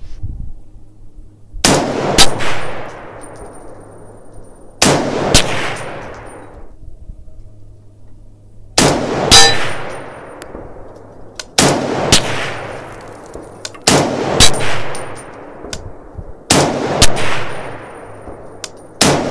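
Semi-automatic JP Rifles LRP-07 in .260 Remington with a large tank muzzle brake firing six shots a few seconds apart, with a seventh right at the end. Each shot has a second sharp crack about half a second after it and a long echoing tail.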